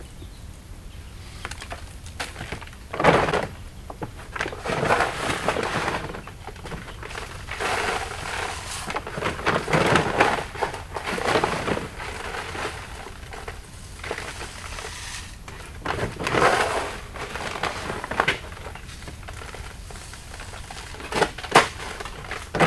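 Chick starter feed being scooped by hand from a feed bag and poured into a plastic chick feeder: irregular rustling and pouring, with a couple of sharp knocks.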